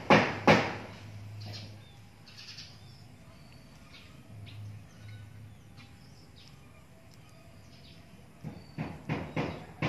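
Sharp knocks about twice a second in the first second, stopping, then starting again near the end; in the quiet stretch between, faint short bird chirps.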